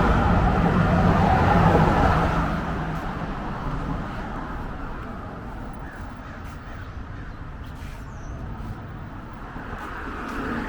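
A motor vehicle passes close by, loud for about two seconds before fading away. Quieter street ambience follows, with a few faint bird calls.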